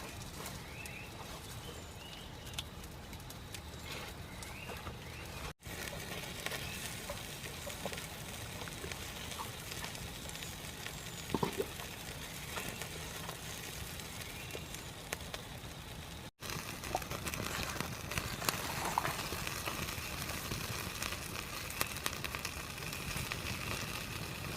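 Wood fire crackling and hissing under a pot of water being heated for coffee, with scattered small pops; after a cut near the middle a faint steady high tone joins the background.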